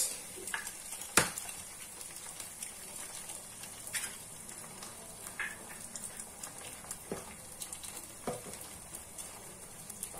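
Two eggs frying in oil in a non-stick pan, with a steady soft sizzle and scattered small pops and crackles. A single sharp knock about a second in.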